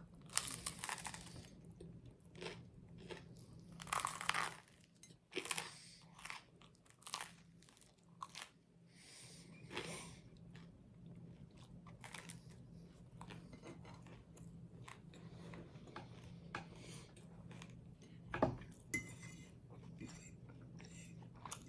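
Close-miked chewing of crunchy garlic bread, with irregular crisp crunches and biting sounds spread across the stretch, some louder than others.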